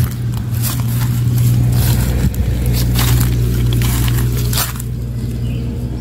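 Footsteps crunching and rustling through grass and dry fallen leaves, irregular crackles that stop after about four and a half seconds, over a steady low hum.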